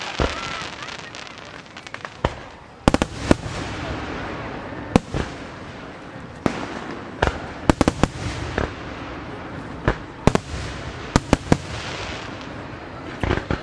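Aerial fireworks shells bursting in an irregular string of sharp bangs, some coming in quick groups of two or three.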